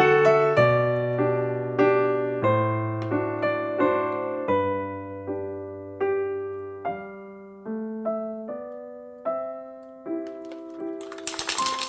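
Background music: a gentle piano tune, single notes and chords struck every half second or so and left to ring out. Near the end a short rustling or scraping noise comes in over it.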